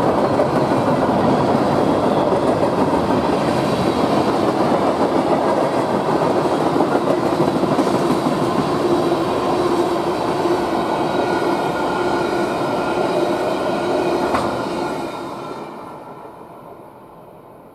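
Freight train cars passing at speed, their steel wheels rolling over the rails in a steady loud rumble. The end of the train goes by about fifteen seconds in, and the sound fades away.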